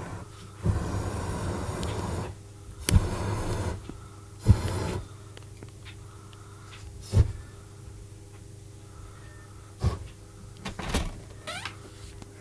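Hot air balloon's propane burner firing in blasts: a long blast of about a second and a half starting about a second in, then two shorter blasts around three and four and a half seconds in. A few sharp knocks follow later.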